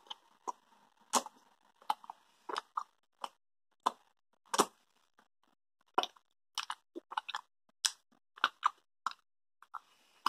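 Wet mouth clicks and smacks of someone chewing a soft, chewy orange fruit-toffee candy: short, irregular smacks, one or two a second, coming thicker a little past the middle.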